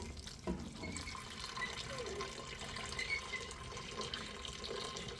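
Steady rain: a continuous hiss of falling water with fine crackle, with two soft knocks right at the start.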